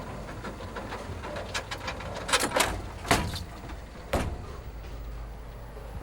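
A handful of sharp, irregular knocks and clatters over a few seconds, over a steady low hum.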